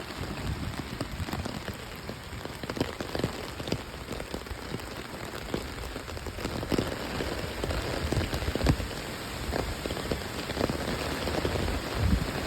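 Steady rain from the outer bands of Hurricane Ian, with many separate drops striking close by, and a low rumble near the end.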